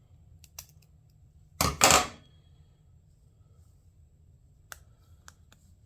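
Small plastic push-rivet clips being worked out of their holes: scattered sharp plastic clicks, with a louder clatter of two quick pieces about one and a half to two seconds in.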